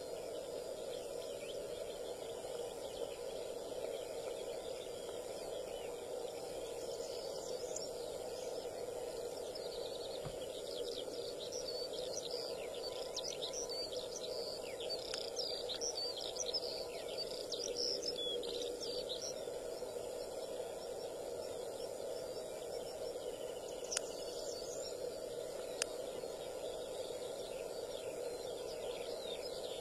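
Small birds chirping and twittering over a steady background noise, busiest through the middle stretch and again near the end, with two sharp clicks about two seconds apart.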